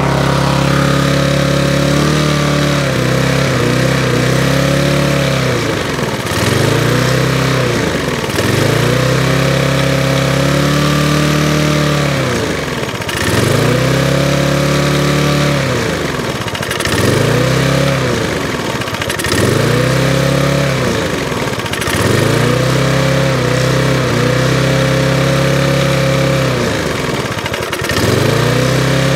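Hayter 41 lawnmower's small petrol engine running, its speed dropping and picking back up again and again, about every two to three seconds. The changes come as its governor linkage and spring are adjusted by hand to bring down a speed that was too fast.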